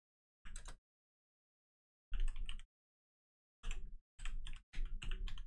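Typing on a computer keyboard: five short bursts of rapid keystrokes, with dead silence in the gaps between them.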